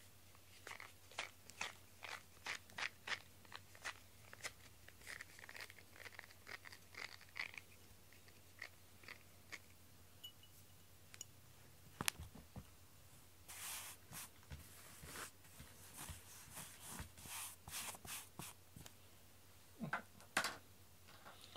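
Faint, scratchy crackling strokes of a pink rubber grooming brush working through cat fur, several short strokes a second in runs, with a couple of soft knocks.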